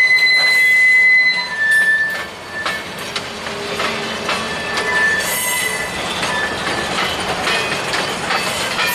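Freight train of boxcars rolling past: a steady high wheel squeal that stops about a second and a half in, then shorter squeals among the clatter and clicks of steel wheels over the rails.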